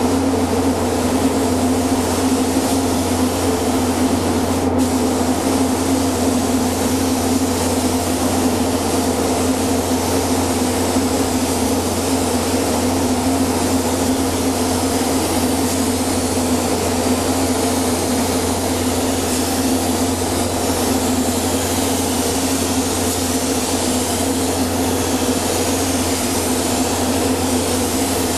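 Compressed-air gravity-feed spray gun hissing steadily as it sprays paint, over a steady machine hum.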